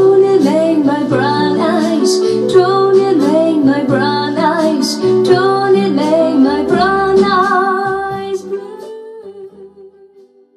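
A pop song with a woman singing over strummed acoustic guitar, played back through a hi-fi power amplifier and speakers as a listening test. It fades out over the last two seconds or so.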